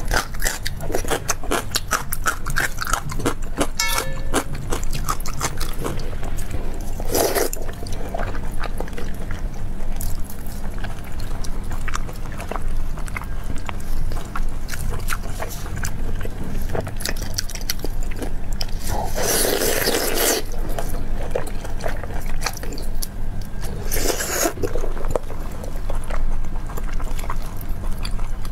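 A person eating soft, fatty pork offal and vegetables in chili oil at a close microphone: wet chewing and lip-smacking with many small clicks, and three louder slurps about seven, nineteen and twenty-four seconds in.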